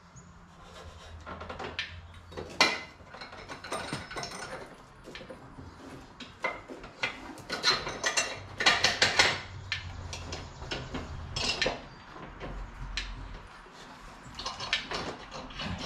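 Clanks, knocks and clicks of wood and steel as a homemade wooden cab-lifting bracket is fitted and bolted onto the end of an engine hoist boom. A run of rapid clicking comes about halfway through.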